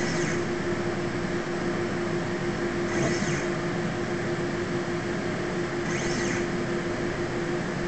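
XY scanner and ultrasonic array system running with a steady mechanical hum and constant tone; about every three seconds the scanner's motors give a brief high whine, rising and falling, as they step the probe to its next position.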